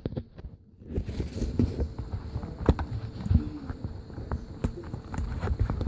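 Scattered light clicks and taps of handling on a workbench, over a low steady rumble and a faint hum.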